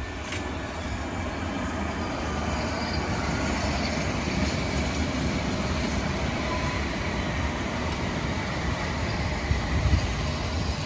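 London Underground S8 Stock train on the Metropolitan line running along the platform: a steady rumble of steel wheels on rail that grows louder over the first few seconds, then holds. A few louder knocks come near the end.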